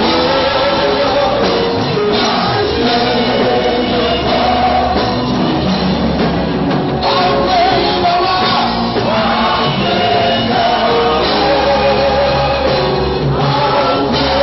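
Live gospel praise music: a male lead singer on a microphone with the congregation singing along, over a band of electric bass guitar, keyboard and drums.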